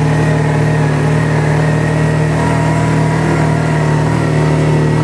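Kawasaki Teryx 800 side-by-side on snow tracks, its V-twin engine running at a steady, even pitch as it drives through snow.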